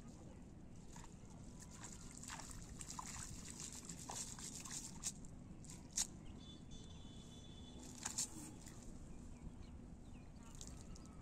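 Faint water dripping and sloshing as a wet cast net is hauled out of a pond, with scattered light clicks and a sharp tap about six seconds in.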